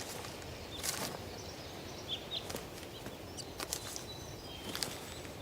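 Outdoor background ambience: a steady low hiss with scattered sharp clicks and a few short bird chirps about two seconds in.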